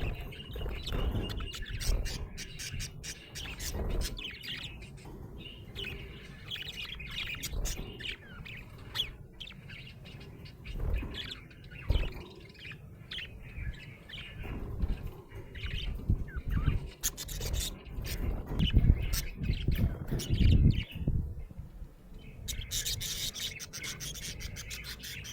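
Budgerigar chirping and chattering in many short notes, over low rubbing and bumping noises.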